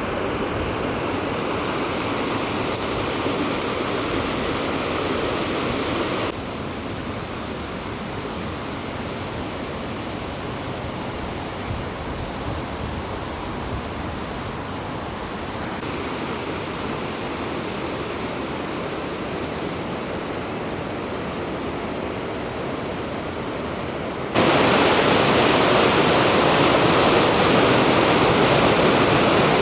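Rushing water of a clear mountain river's upper reaches, a steady hiss of flowing water. It turns quieter about six seconds in, then suddenly much louder near the end.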